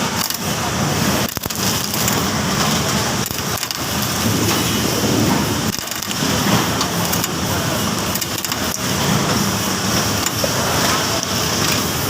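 Coconut-shelling machine running, its steady mechanical noise mixed with the cracking and crushing of coconut shells being broken away from the kernels, with scattered sharp cracks.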